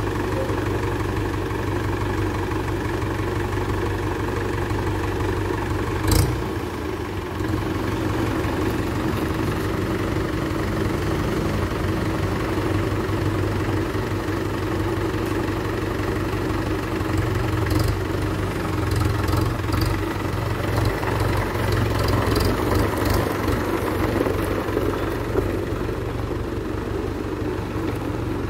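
Mahindra 475 DI tractor's four-cylinder direct-injection diesel engine idling steadily, with one sharp knock about six seconds in. In the last ten seconds or so the engine note rises and falls unevenly as the tractor moves off.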